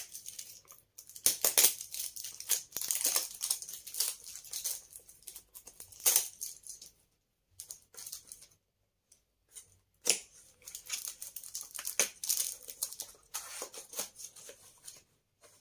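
Cardboard and plastic packaging being handled and torn open as a skincare product box is unpacked: irregular rustling and tearing in bursts, with a lull about eight seconds in.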